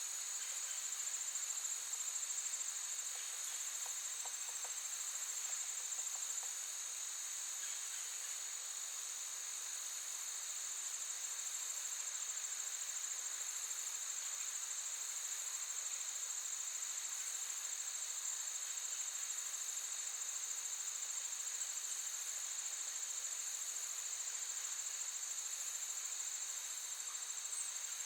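Crickets trilling steadily in a continuous high-pitched chorus.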